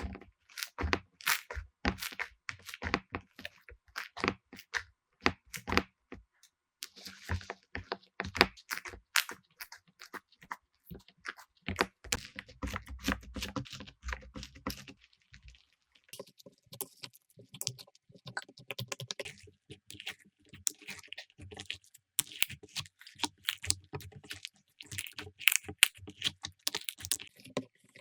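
Slime being pressed and squeezed by hand, giving a fast, irregular string of sharp clicks, crackles and pops, with a brief pause about halfway through.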